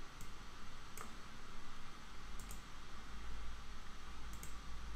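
A handful of light computer-mouse clicks, some in quick pairs, over a faint steady hiss.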